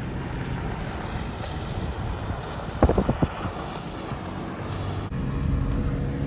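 Vehicle cabin noise while driving up a rough dirt road: steady engine and tyre rumble, with a few sharp knocks about three seconds in.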